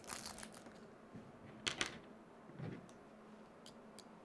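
Faint handling of small parts: a small plastic parts bag rustles briefly, then two sharp clicks a little under two seconds in, a soft knock, and a couple of light ticks as small screws and a screwdriver are picked up.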